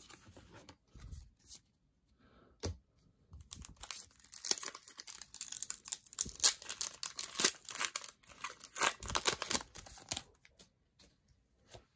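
Foil wrapper of a Pokémon Vivid Voltage booster pack being torn open and crinkled by hand: a run of crackling rips from about four seconds in that stops near ten seconds, after a single short click.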